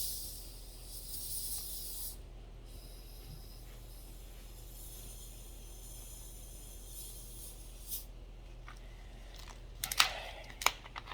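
Fizzing hiss from a 2-liter bottle of Sprite, fading out over the first two seconds. Then a faint steady hum, with a few sharp clicks and knocks near the end.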